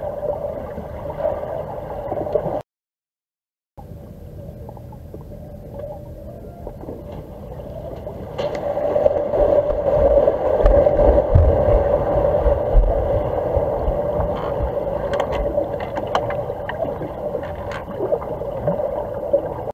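Underwater noise picked up by a camera at the bottom of a swimming pool: a steady muffled hum with gurgling, low thuds and scattered sharp clicks. The sound cuts out to silence for about a second near the start, and grows louder from about eight seconds in.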